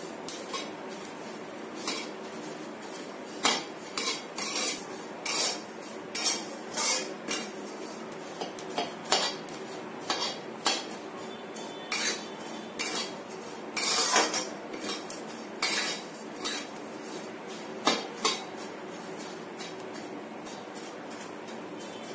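Metal spatula scraping and knocking against a metal kadhai in irregular strokes as thin vermicelli is stirred and roasted in a little ghee. The strokes stop a few seconds before the end.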